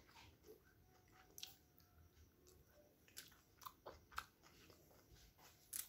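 Faint chewing and wet mouth clicks of someone eating chicken momos, a few soft smacks scattered through otherwise near-silence.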